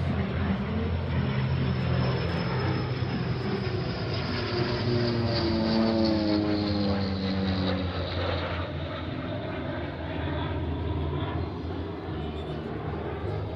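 Propeller airplane flying past, its engine note sliding down in pitch as it goes by about six to eight seconds in, then fading a little.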